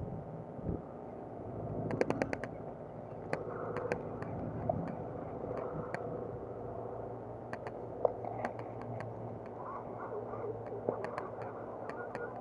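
A spinning fishing reel clicking in short runs of quick clicks, several times over, while a hooked bullseye snakehead is being played, with a low steady background.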